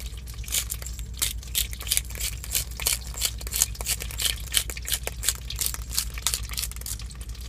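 Hand-turned pepper mill grinding peppercorns: a fast, uneven crackle of clicks, over a steady low hum. The cook thinks the mill's grinding blades are wearing out.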